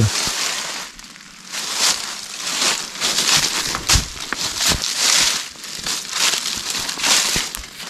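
Footsteps crunching through dry leaves on the forest floor, a step roughly every half second to second, with a few sharper cracks among them.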